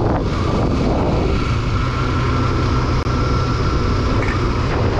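Bajaj Pulsar NS200's single-cylinder engine running steadily while the motorcycle is ridden at road speed, heard from the rider's position. A thin, steady high whine sits over it from about a second in.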